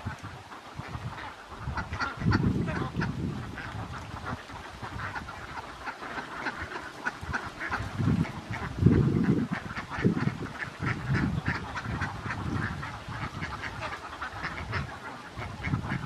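A large flock of domestic ducks quacking, with many short calls overlapping without pause. Now and then there is a low rumble, loudest about nine seconds in.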